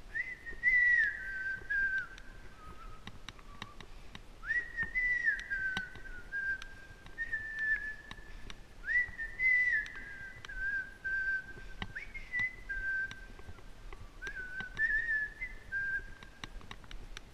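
A person whistling a slow tune in short phrases, with brief pauses between them.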